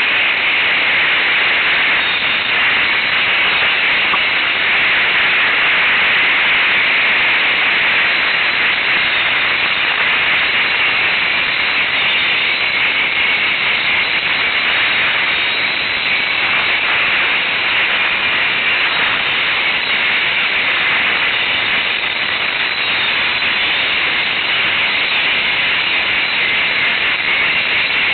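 ATV being ridden on a trail, heard as a steady, loud hiss-like rush of riding noise with no clear engine note picked out.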